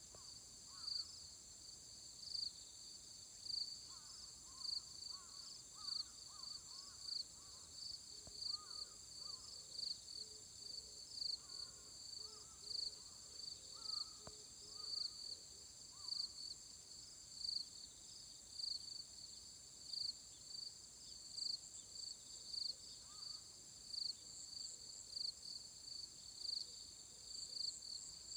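Autumn insects singing: a steady high-pitched trill with a regular pulsing chirp about once a second over it.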